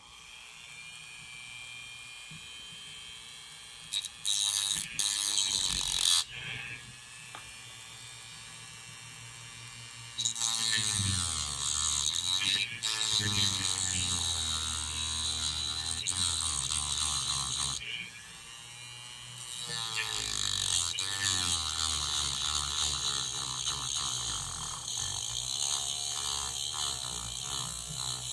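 Small handheld rotary tool with a cut-off wheel running steadily, then grinding into a small model-locomotive part to trim off pieces: a brief cut about four seconds in, and longer, louder cuts from about ten to eighteen seconds and again from about nineteen seconds on, the motor's pitch dipping as the wheel bites.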